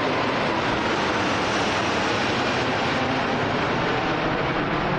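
Airbus A380's four turbofan engines at takeoff power as the airliner climbs away just after passing overhead: a steady, dense rush of jet noise with no distinct whine.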